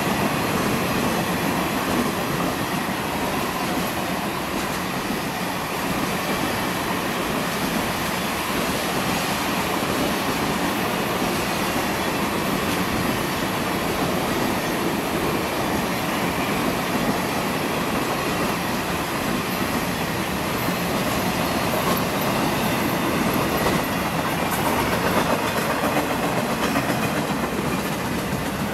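Steady noise of a long train's cars rolling past on steel wheels over the rails: passenger cars, then flatcars carrying trailers near the end.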